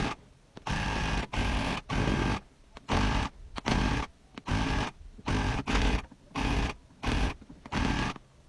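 Electric rug tufting gun running in quick short bursts, triggered on and off every half second or so with brief pauses between, as it punches yarn into the backing cloth.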